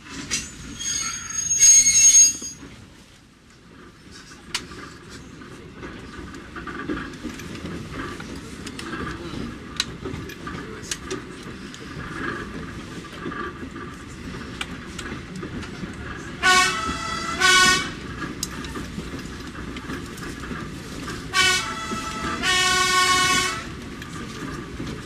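Diesel railcar running along the track from the cab, with steady rolling and engine noise. Its two-tone horn sounds two short pairs of blasts, one pair about two-thirds of the way through and another near the end, the second blast of the last pair held longer. There is a loud shrill sound just after the start.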